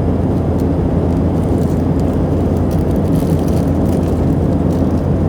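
Steady, loud rumble of airliner cabin noise in flight, an even drone of engine and air noise with a few faint clicks.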